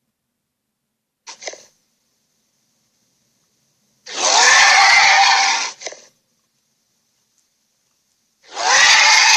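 Giant ape roar sound effects: a short grunt, then a loud, rough roar about four seconds in lasting about a second and a half, and another roar starting near the end, with dead silence between them.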